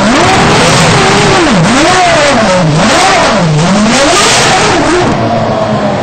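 Red Bull RB1 Formula 1 car's Cosworth V10 engine revving up and down, its pitch dipping and climbing back about three times.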